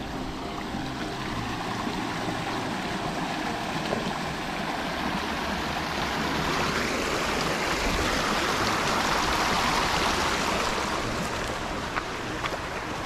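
Water of a small rocky stream rushing and splashing over stones, growing louder about halfway through and easing off near the end.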